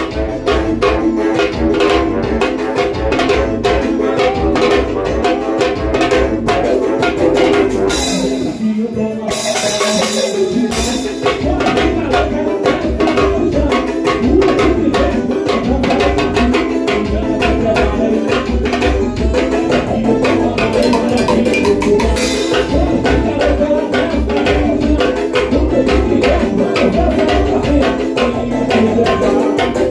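Live band music played loud over a PA, a drum kit keeping a fast, steady beat under sustained melodic lines. The beat breaks off briefly about eight seconds in, then returns.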